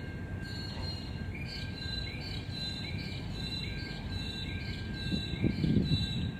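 Container wagons of a Pacific National freight train rolling past with a steady rumble, and a high chirping repeating about twice a second over it. Wind buffets the microphone about five seconds in.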